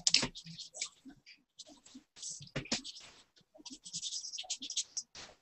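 Drawing tool rubbing on paper in a string of short, irregular scratchy strokes as a drawing is worked over by hand.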